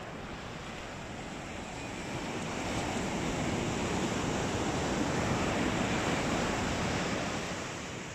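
Sea surf breaking and washing up the beach, a steady rush that swells to a peak about halfway through and eases off near the end.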